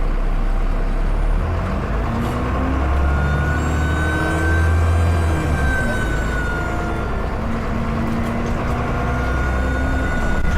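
Dennis Enviro 400 double-decker bus engine pulling under load, its pitch rising about two seconds in, with a high turbocharger whistle that comes in about three seconds in, swells and fades, then returns near the end.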